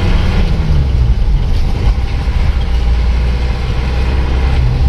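Isuzu Panther diesel engine running under way, heard from inside the cabin: a low drone whose pitch drops and fades about half a second in, then holds steady until it picks up again near the end. The engine is badly down on power, with no pull even at full throttle.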